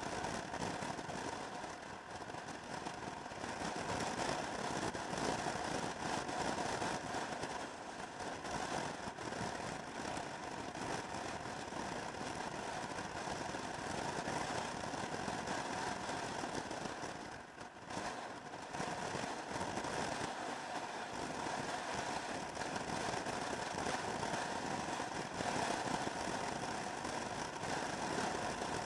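Motor scooter riding on the road, heard as a steady rush of wind over the microphone mixed with the drone of its engine and tyres. The level dips briefly about two-thirds of the way through.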